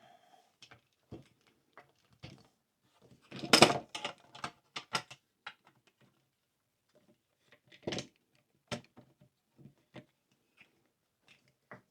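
Hands working at a bench with tools and a clamped circuit-board holder: scattered light clicks and knocks, with a louder clatter about three and a half seconds in and another sharp knock around eight seconds.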